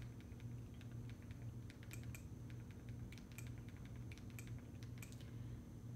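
Faint, irregular clicks of a Fire TV remote's buttons pressed in quick succession to step across the on-screen keyboard and select letters, over a low steady hum.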